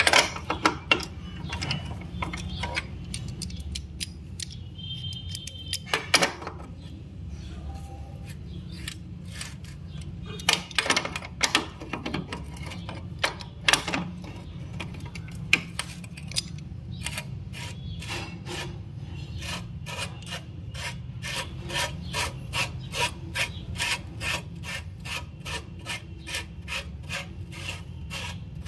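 Metal clicks, knocks and scraping from an adjustable wrench working the slotted collar at a Yamaha RX100's exhaust pipe-to-silencer joint, squeezing it to stop an exhaust leak. Irregular knocks at first, then a run of regular clicks about two a second over the second half.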